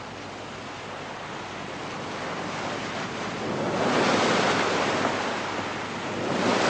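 Sea waves washing, a steady rushing that swells up about halfway through and again near the end.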